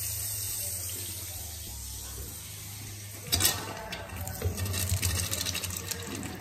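Bathroom sink faucet running into the basin while the house's main water is shut off, the stream weakening as the line pressure bleeds down. A louder surge about three seconds in, then uneven splashing.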